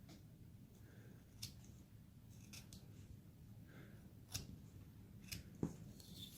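Hand carving tool slicing small cuts into basswood: about half a dozen quiet, sharp snicks at uneven intervals, the strongest a little past the middle and near the end.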